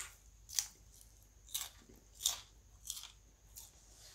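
A mouthful of corn cracker being chewed: about six short, crisp crunches, one every half to three-quarters of a second.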